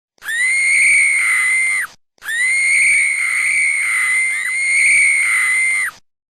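A woman screaming: three long, high-pitched screams held at a steady pitch, each dropping away at the end. The second and third run almost straight into each other.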